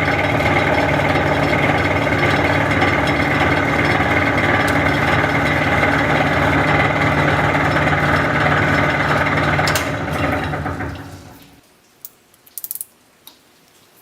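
Small metal lathe running steadily while turning down a motor's armature shaft, then switched off about ten seconds in and spinning down to a stop. A few light clicks follow near the end.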